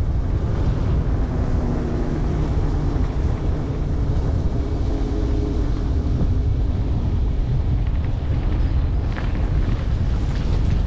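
Motorcycle engine running steadily under heavy wind buffeting on the microphone.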